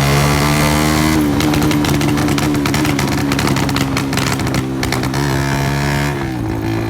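A Honda CG 125's single-cylinder four-stroke engine running at a steady speed through a cracked silencer. A rapid crackle runs over the engine from about a second in until near the end.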